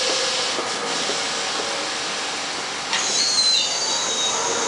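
R68A subway train running past on its track, a steady rumble and hiss of wheels on rail. About three seconds in it gets louder, and brief high-pitched wheel squeals sound for about a second.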